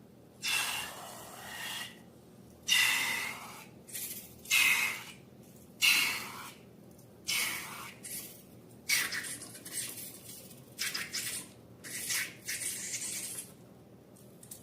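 Slime being squeezed and stretched by hand, giving a series of about nine airy, squishy bursts with short pauses between them.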